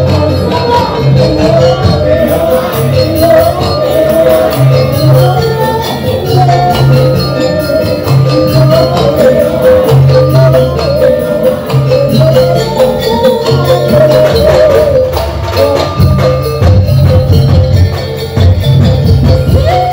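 Loud live parade music: deep drum beats pulse under a wavering melody line, with jingling percussion on top throughout.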